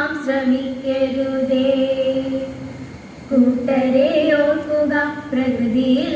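Girls singing a Malayalam song unaccompanied, holding long drawn-out notes with a short breath about halfway through.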